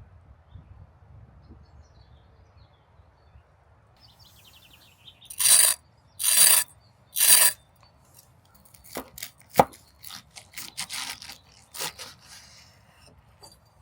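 Knife cutting through the crisp fried panko crust of a chicken cordon bleu: three crunchy strokes about a second apart, then a run of lighter taps and clicks.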